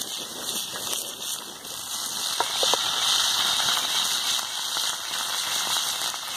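Chicken pieces sizzling in hot oil in a metal pan over a wood fire: a steady frying hiss, with some crackling from the burning wood underneath.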